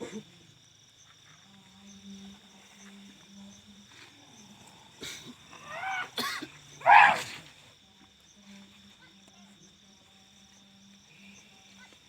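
Crickets or other insects chirring steadily, broken about five seconds in by a few loud wordless vocal cries or groans from a person, the loudest near seven seconds.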